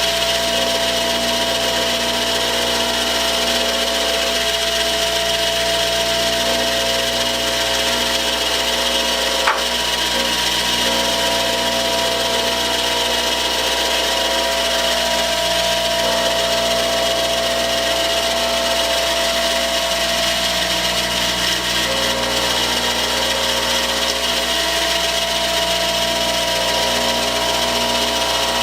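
Electric grindstone running steadily as a stainless steel screw is held against the stone and ground down to length, a continuous grinding hiss over the motor's steady hum. A single sharp click about nine and a half seconds in.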